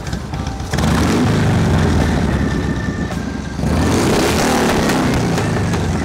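Harley-Davidson Shovelhead V-twin engine with an S&S Super E carburettor running, blipped up in revs twice, about a second in and again past the middle.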